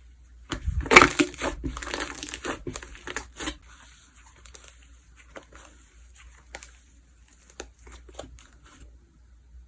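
Slime being worked by hand: a dense burst of crinkly, crackling crunches for about three seconds, then scattered soft pops and clicks.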